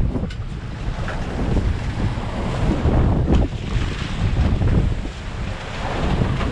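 Strong wind buffeting the microphone over a choppy open sea, with waves breaking and water rushing along a boat's hull.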